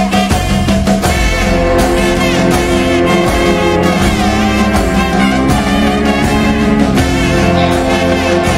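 Loud music with a steady drumbeat under sustained pitched instruments and a wavering lead melody line.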